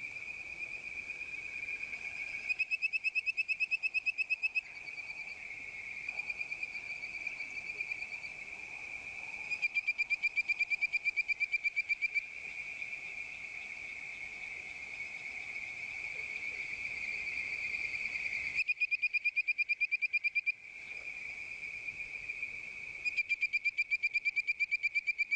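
Bird-voiced treefrogs (Hyla avivoca) calling. Four bouts of rapid, bird-like whistled "tweet" notes, about six a second and about two seconds per bout, sound over a steady high-pitched background chorus.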